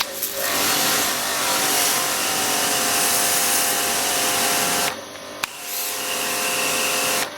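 Foma Pro Line 660 electric pressure washer running and spraying: a loud steady hiss of the water jet over the hum of the motor. The spray breaks off about five seconds in, with a single click, then starts again and stops once more near the end.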